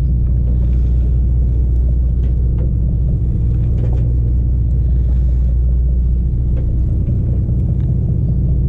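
Boat engine running with a steady low rumble, with a few faint ticks over it.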